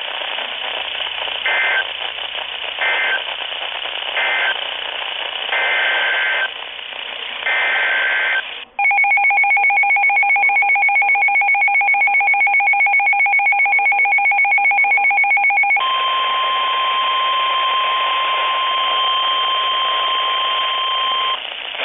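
Emergency Alert System tones received on a weather radio. First come short screeching SAME data-header bursts over radio static, five in about eight seconds. Then a clean, slightly pulsing two-tone EAS attention signal sounds for about seven seconds, followed by the single steady NOAA Weather Radio warning alarm tone over static for about five seconds, which marks the start of a warning broadcast.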